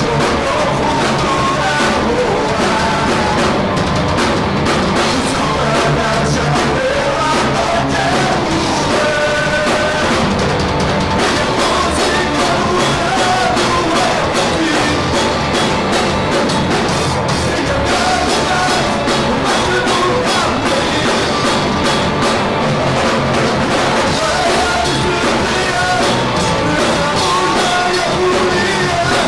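Live rock band playing a heavy rock cover: drum kit and amplified instruments played loud through PA speakers. The sound is captured at close range to the speakers, so it comes across rough and overloaded.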